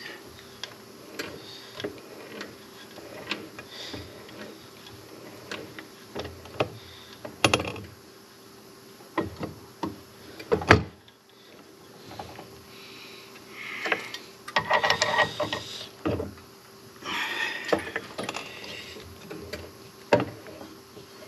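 Drill working a small oil-restrictor hole in a Ford FE engine part by hand: intermittent clicks and knocks of the bit and part, with two short bursts of drilling noise about two-thirds of the way in, over a faint steady hum.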